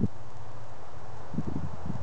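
Wind buffeting the microphone in irregular low rumbling gusts, easing off briefly and picking up again about halfway through.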